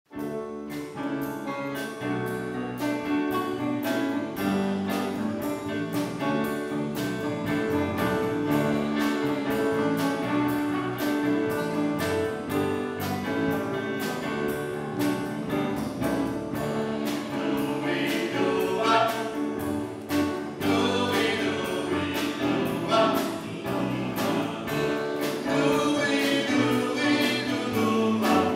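Mixed choir of men's and women's voices singing a gospel song in four-part harmony, over accompaniment with a steady beat; the singing grows stronger from about eighteen seconds in.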